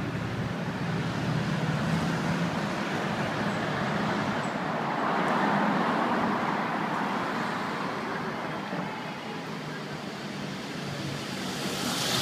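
Steady noise of passing vehicles, swelling about five seconds in and again near the end.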